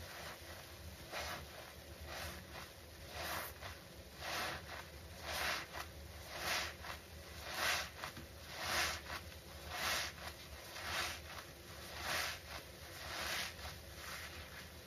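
Small wet foam sponges squeezed over and over in thick soapy suds by a gloved hand, a squelching squish about once a second.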